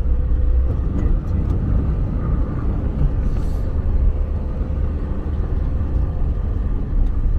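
Car driving along a mountain road, with a steady low engine and road rumble and a few light clicks and knocks.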